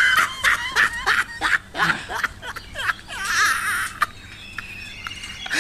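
A man panting in quick, ragged gasps with his mouth burning from an extremely hot chili chip, then a short wavering whimper and quieter breathing.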